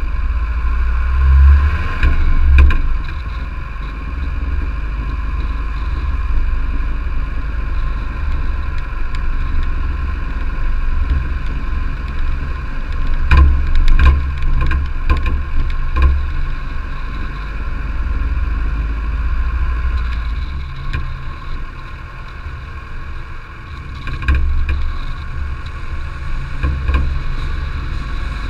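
A car driving along a gravel road, heard from close to the vehicle: a strong, uneven low rumble from the engine and the tyres on the loose surface, with scattered sharp knocks from stones and bumps.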